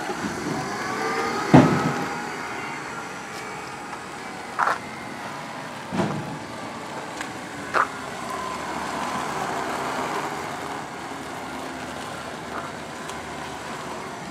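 Magic Mobility Extreme X8 four-wheel-drive power chair driving, its four 700-watt electric wheel motors whining, the pitch rising and falling as it changes speed. Four sharp knocks are heard as the chair goes over the ground, the loudest about a second and a half in.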